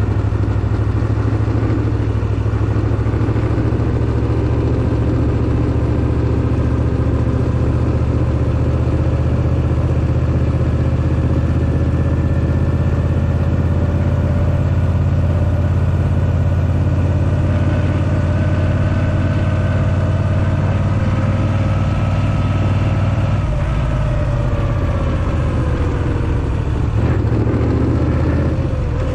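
Moto Guzzi V7 III Racer's air-cooled transverse V-twin running as the motorcycle climbs, heard from an onboard camera. The engine note rises slowly for most of the stretch, then drops about three-quarters of the way through and falls away again near the end.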